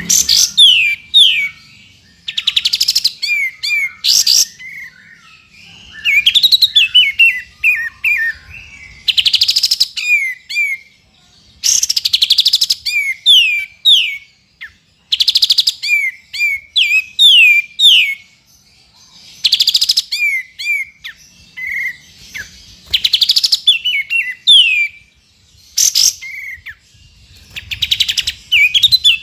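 Kapas tembak bulbul singing: phrases of quick, clear downslurred whistles repeated again and again, broken every few seconds by short bursts of fast, dense chattering, with brief pauses between phrases.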